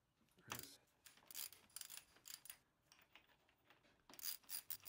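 Ratchet wrench with a 22 mm socket clicking faintly in quick runs as it works the compression loader cap loose on a DVO Diamond suspension fork. There is one run of clicks about a second in and another near the end, after a short scrape as the socket seats.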